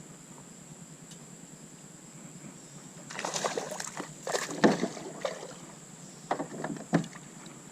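Kayak paddle strokes with knocks against the hull. It is quiet for the first three seconds, then come a few strokes with sharp knocks; the loudest knock is near the middle and another comes near the end.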